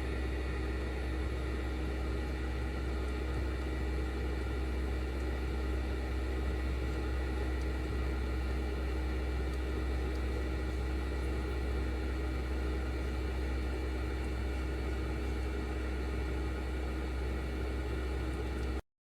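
Steady machine hum of an electric sump pump running, with a strong low rumble and several constant tones underneath. It cuts off abruptly near the end.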